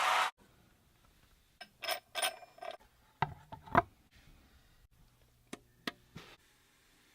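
Small mechanical clicks and rattles from the plastic parts of a Mouse Trap board-game contraption, in a cluster about two to four seconds in, then three single clicks near the end. A loud rushing noise cuts off suddenly at the very start.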